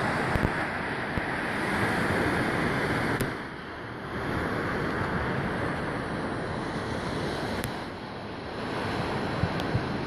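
Small surf breaking and washing on a sandy beach, with wind buffeting the microphone. The wash swells and eases, dropping back briefly twice.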